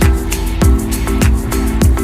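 Background music with a steady beat: a low kick drum about every 0.6 seconds and crisp high ticks between them, over held chords.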